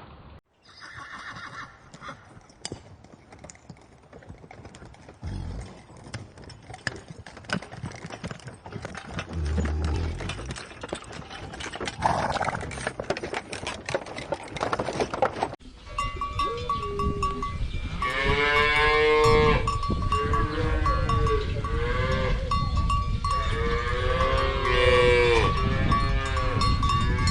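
Farm animals bleating with a bell ringing: several wavering calls in the second half, over a steady bell tone. Before that, scattered clicks and rustling.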